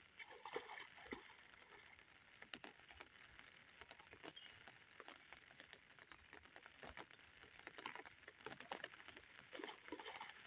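Faint, irregular patter and small splashes of water in shallow floodwater, with scattered light ticks; a little louder about half a second in and again near the end.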